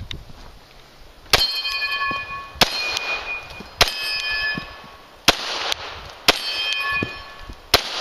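Six 9mm pistol shots from a Glock 17, spaced about one to one and a half seconds apart. Each shot is followed by the ringing of a steel plate target as it is hit and knocked down.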